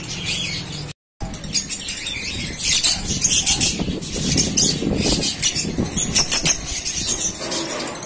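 A flock of caged African lovebirds chirping constantly, many shrill overlapping calls, with wings flapping and rustling among them. The sound cuts out for a moment about a second in.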